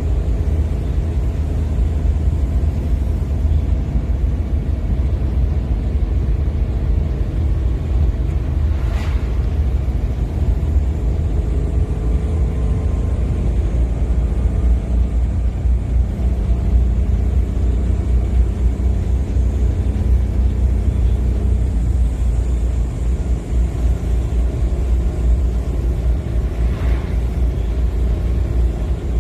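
Steady low rumble of a vehicle in motion, with a faint click about a third of the way in and another near the end.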